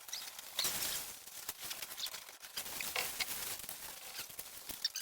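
Gravel being shovelled and spread: irregular scraping and clattering of stones, with a louder scrape about half a second in and another about three seconds in.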